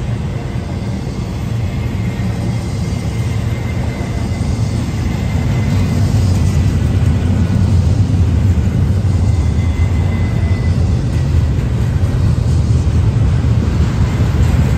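Double-stack intermodal freight train rolling past at speed: a steady heavy rumble of wheels on the rails, growing a little louder after the first few seconds.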